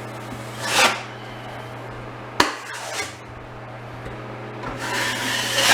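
A wide drywall trowel scraping joint compound across the wall in firm strokes: a short swish about a second in, another near three seconds, and a longer scrape building toward the end, with a sharp click a little past two seconds.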